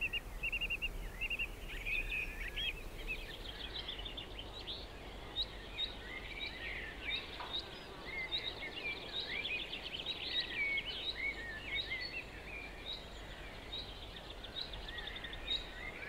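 Birds singing and chirping outdoors, a mix of short repeated trills and varied chirps, over faint background noise.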